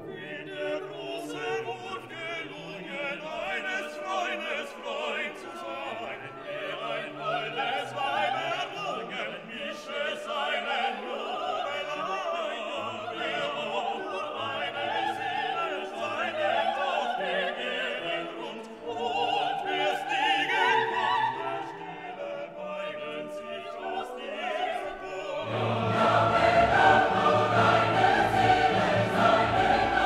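Background music: classical choral and operatic singing with orchestra, swelling fuller and louder with a deeper bass near the end.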